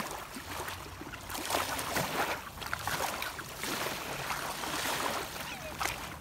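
Small waves lapping and washing up onto a sandy shore, an uneven hiss of moving water that swells and fades.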